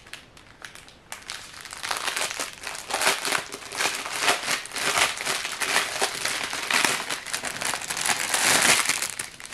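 Clear plastic packaging of diamond painting drill bags crinkling as it is handled, a dense run of irregular crackles starting about a second in.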